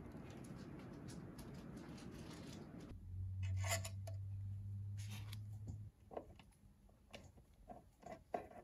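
Plastic parts bags rustling as small hardware is handled. Then a low steady hum for about three seconds with a few clicks, followed by light metallic ticks of a small screwdriver working tiny screws on a QHY filter wheel and off-axis guider assembly.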